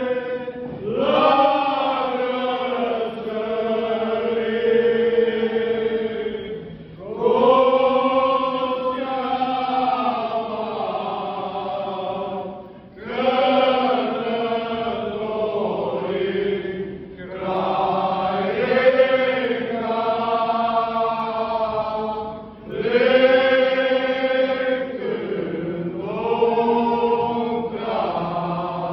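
A group of men singing a Romanian colindă (Christmas carol) together, in long sung phrases of several seconds each, with short pauses for breath between them.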